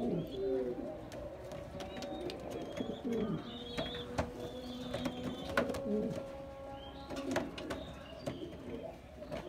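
Spanish pouter (Gorguero) pigeons cooing: low, repeated rolling coos, with faint higher chirps and a few small clicks.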